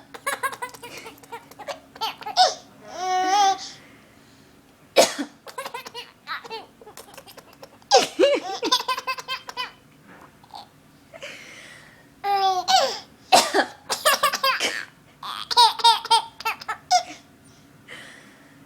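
A woman coughing several times in short, sharp bursts, and a baby laughing in peals of giggles after the coughs.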